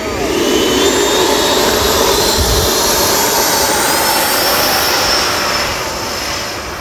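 Twin 80 mm electric ducted fans of a Freewing MiG-29 RC jet at takeoff power on the takeoff roll: a loud rushing whine that rises in pitch, then grows a little fainter near the end.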